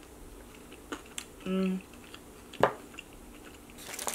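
Close-miked eating sounds from a chicken wing: wet lip smacks and clicks, a short hummed "mm" about a second and a half in, and a sharp smack past the middle. Near the end, aluminium foil crinkles as the wings in their foil tray are handled.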